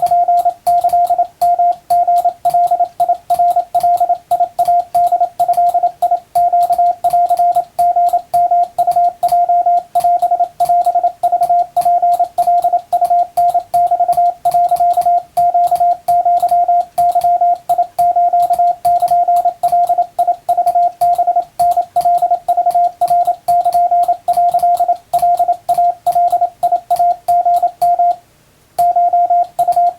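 Hand-sent Wabun (Japanese kana) Morse code in plain language: a single steady tone keyed rapidly on and off in dots and dashes, with one short pause near the end.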